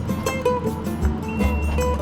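Background music with a steady beat, bass and short plucked guitar notes.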